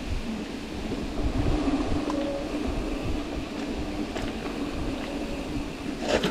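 Mountain bike rolling along a dirt singletrack: a steady rumble of the tyres on the trail and wind on the microphone, with a constant hum under it. A single sharp clatter comes near the end.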